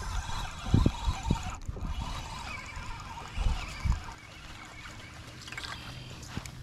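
Water lapping and sloshing against a fishing boat's hull, with a few low bumps and rustles as a jacket sleeve brushes over the body-worn camera in the first four seconds. About halfway through, a low steady hum comes in under the water sounds.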